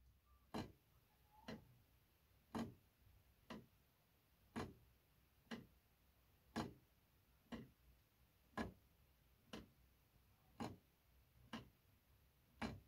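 3D-printed mechanical pendulum clock ticking, about one tick a second, the strokes of its escapement alternating louder and softer.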